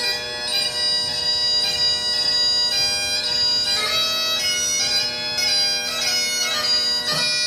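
Highland bagpipes playing a dance tune for a Highland fling: a changing, ornamented melody over a steady, unbroken drone.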